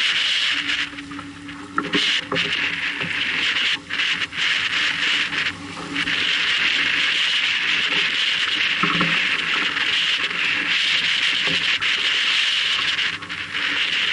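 Sailboat under sail: water rushing along the hull and wind on the microphone make a steady hiss that dips briefly a few times.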